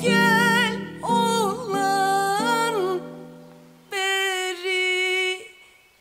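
A woman singing a slow Turkish folk song (türkü) in long, held phrases over soft sustained accompaniment. The accompaniment drops out about halfway through, leaving one long held note that fades away near the end.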